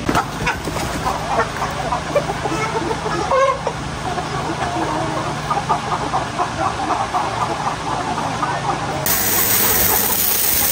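A flock of chickens clucking, many short overlapping calls over a low steady hum. About nine seconds in, a loud steady hiss starts abruptly.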